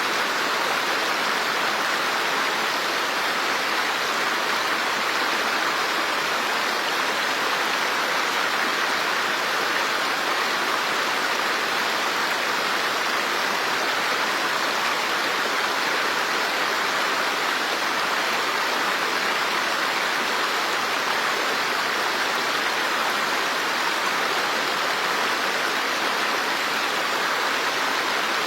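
Running water making a steady, even rush with no change or pauses.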